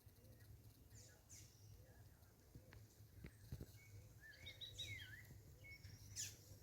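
Faint birds calling: scattered short chirps, with a brief run of warbled, gliding notes about four to five seconds in, over a low steady hum.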